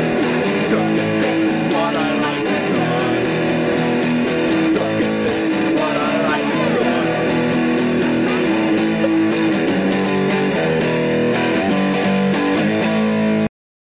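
Guitar music with a steady strummed rhythm, cutting off abruptly just before the end.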